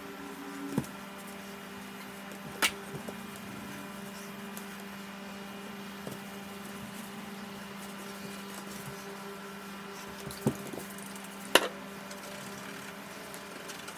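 A steady low hum, with four sharp knocks or clicks scattered through it; the loudest comes a little after two-thirds of the way in.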